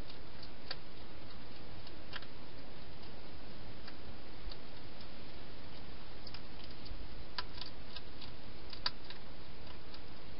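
Sparse small clicks and crunches, a second or more apart, from a wild hedgehog eating at the bowls inside a clear plastic feeding box, over a steady hiss.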